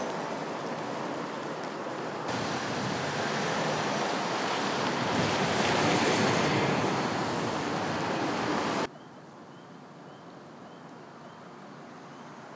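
Steady outdoor rushing noise of wind on the microphone. It steps louder about two seconds in, then drops suddenly to a much quieter hush about nine seconds in.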